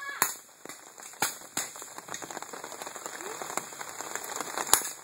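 Paintball marker shots: about five sharp, irregular pops, the loudest near the end, over the steady hiss of rain falling.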